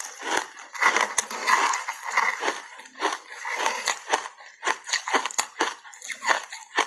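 Frozen ice bars thickly coated in matcha powder crunching and cracking: a quick string of sharp crunches and cracks, densest early on, then spaced-out single cracks.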